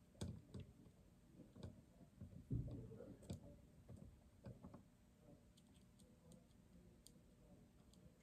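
Faint, scattered clicks and small knocks of a flathead screwdriver turning an idle mixture screw into the metering block of a Holley 4150 carburetor.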